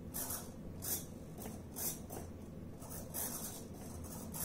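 Small hobby servos of an FPV camera gimbal whirring in short scratchy bursts, several times, as the camera is panned and tilted, over a faint low hum.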